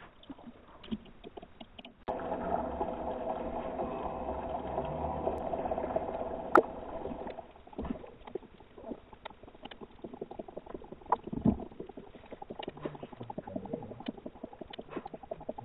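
Bathwater and a dog's paws heard from underwater: sloshing, with irregular knocks and taps against the tub. A steady hum from about two seconds in stops at about seven and a half seconds, and a sharp click comes shortly before it ends.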